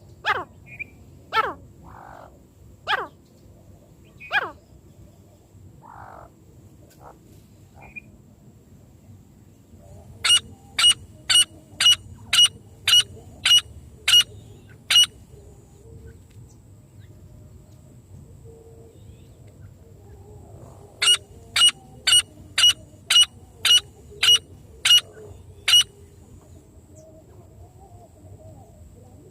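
Francolin (teetar) calls. There are a few loud falling notes at first, then two runs of about ten sharp, evenly repeated notes, roughly two a second, with a pause between the runs.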